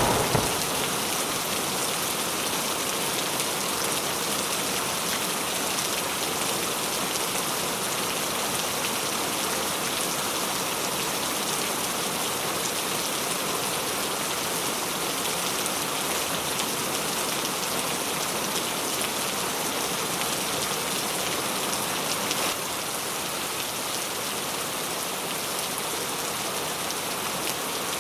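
Steady heavy rain falling, an even hiss of drops on surfaces. Right at the start a sharp, loud crack fades out within half a second, the tail of a thunderclap; the rain eases slightly near the end.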